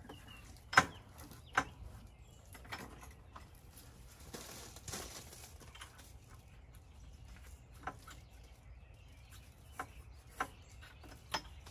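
Scattered light clicks and knocks, the loudest about a second in, from the push salt spreader's handle and its bungee hooks being worked against the ATV's rear rack.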